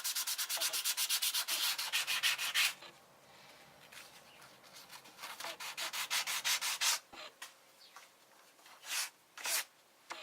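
Wooden lure body sanded by hand in quick back-and-forth strokes, about ten a second. The strokes come in two runs with a pause between, then two single slower strokes near the end.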